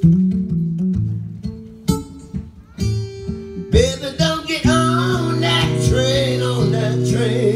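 Solo acoustic guitar playing blues: single picked notes and a bass figure, then from about four seconds in a fuller, ringing chord with bending notes over it.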